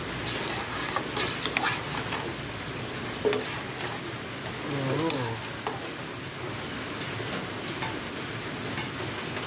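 A metal spoon stirring hot cocoa in a stainless steel saucepan, with scattered light clinks and scrapes against the pot as the cacao tablets are worked until they dissolve.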